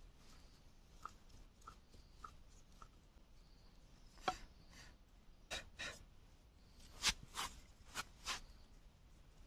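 Large knife working a bamboo tube: a few light ticks, then a run of about seven sharp knocks and scrapes through the second half.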